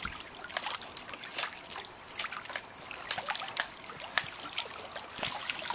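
Pool water splashing and lapping in quick, irregular small splashes as a Cairn terrier paddles and a person moves through the water beside it.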